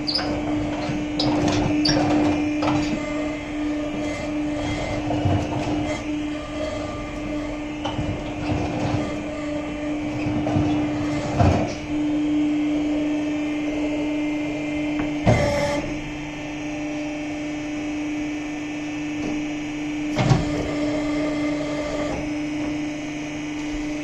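Varmo cattle feeding machine running with a steady hum as it dispenses hay along the feed alley, with three sharp knocks spread through.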